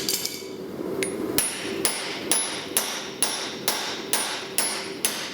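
Hand hammer striking a punch through a hot steel bar on an anvil to punch a hole. About ten even blows, roughly two a second, start about a second in, each with a short, high metallic ring.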